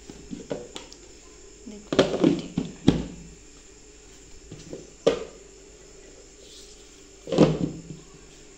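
Kitchenware being handled: a casserole lid and metal utensils knocking and clattering in about five separate knocks, the loudest about two seconds in and again near the end.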